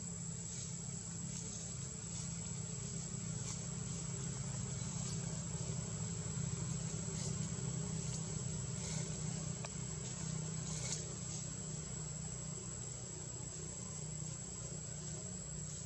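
Steady outdoor ambience: a constant low hum with faint insect buzzing above it.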